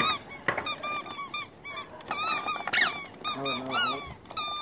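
Wooden toddler walker cart squeaking as it is pushed along, a quick run of short high squeaks about three or four a second from its turning wheels. An adult who hears it remarks that the cart seems to need repair.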